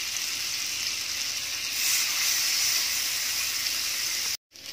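Butter sizzling on a flat tawa griddle around skewers of marinated paneer tikka, frying over a medium flame: a steady hiss that cuts off abruptly near the end.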